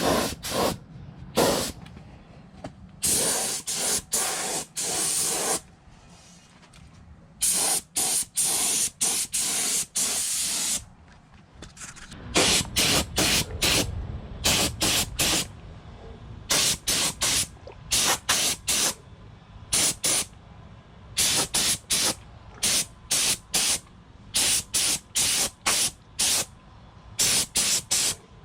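Paint spray hissing on and off in many short bursts and a few longer passes: primer being sprayed onto alloy wheels.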